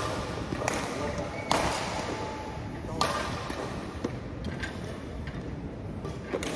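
Badminton rackets striking a shuttlecock in a rally: a handful of sharp strikes a second or so apart, the loudest about a second and a half in and again about three seconds in, each ringing on in a large echoing hall.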